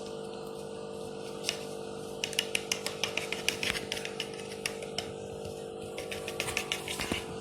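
Glue being spread and worked onto a PVC pipe by hand: a run of quick, irregular scratchy clicks that starts about two seconds in and thins out near the end, over a steady low hum.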